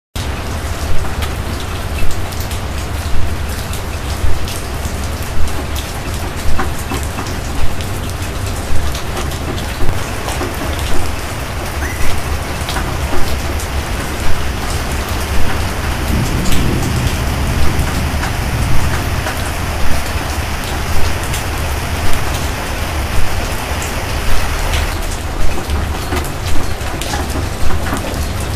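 Heavy rain pouring down in a storm, with a loud pulse recurring about once a second.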